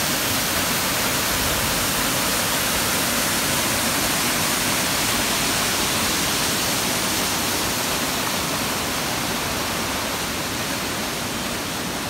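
Waterfall pouring into a rock pool: a steady, loud rush of falling water, easing a little near the end.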